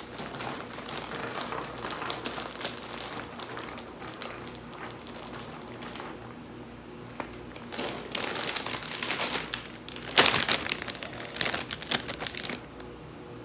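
Plastic popcorn bag crinkling as it is handled and popcorn is poured into a bowl, loudest about ten seconds in.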